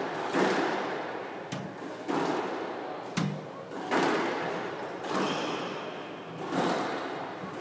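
Squash rally: the ball struck by rackets and cracking off the court walls, a sharp hit about every second or so, each with a short echo in the court.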